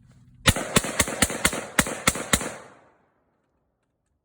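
Diamondback DB15 AR-15-style rifle fired semi-automatically in a rapid string of about eight shots, roughly four a second, each with a short ringing echo that fades out about half a second after the last shot.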